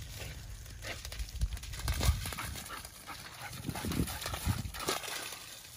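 A dog running flat out across waterlogged grass and shallow puddles: quick, irregular paw thuds with some splashing.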